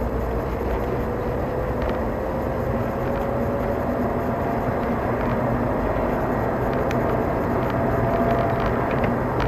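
Car driving and gathering speed, heard from inside the cabin: steady road and engine noise with a faint whine that rises slowly in pitch as the car speeds up.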